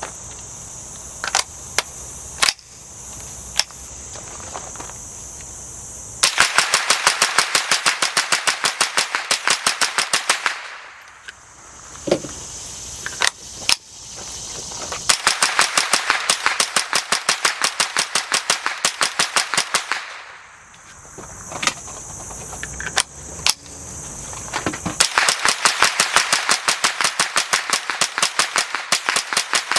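Suppressed .22 LR semi-automatic rifle, a Smith & Wesson M&P 15-22, fired in fast, even strings of about five shots a second. There are three long strings, each lasting several seconds, after a few single sharp clicks in the first seconds.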